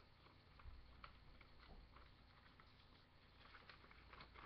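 Faint crinkling and rustling of a sheet of paper being folded and handled into a paper airplane, a scatter of small irregular ticks.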